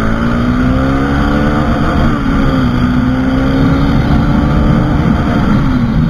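Bajaj motorcycle's engine running hard at speed, with road and wind rush. The engine note climbs a little, dips briefly about two seconds in, holds steady, then eases down near the end.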